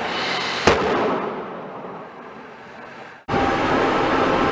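Raptor engine igniter tests at a launch mount. First, an old torch-igniter test gives one sharp bang about two-thirds of a second in, followed by a fading rumble. About three seconds in, it cuts abruptly to a new Raptor 2 igniter test: a steady, loud hiss with no bang, because the torch igniters have been removed.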